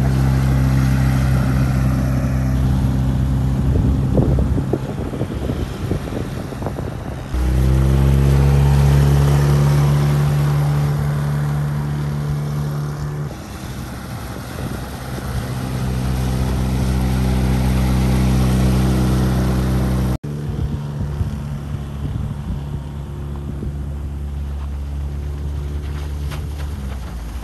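Outboard motor on an inflatable boat running at high throttle, pushing the bow-high boat as it struggles to get on plane. The steady engine note jumps abruptly twice as the shots change, with some wind on the microphone.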